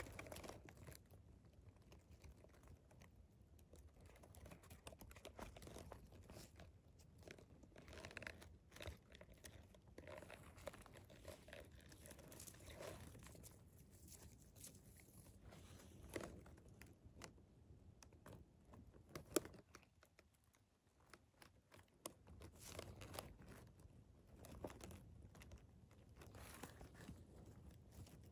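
Near silence: faint scattered rustling and crackling, with one sharp click about nineteen seconds in.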